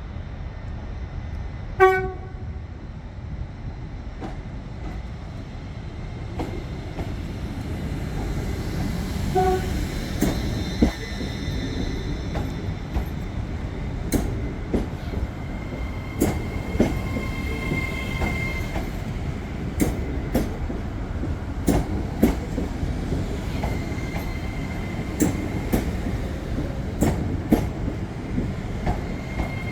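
A train horn gives a short blast about two seconds in and a fainter one near ten seconds. Then a train rolls through, a steady rumble with its wheels clicking over the rail joints and a thin squeal from the wheels.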